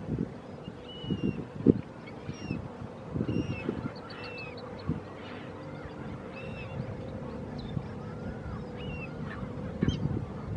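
Many short, high bird calls in quick succession, over irregular low rumbling bumps.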